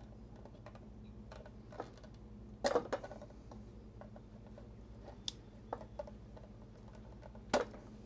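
Small clicks and clacks of wire leads and a plastic jumper plug being worked off terminal pins inside a motor drive's plastic enclosure. There is a cluster of louder clacks about three seconds in and one sharp click near the end, over a faint steady low hum.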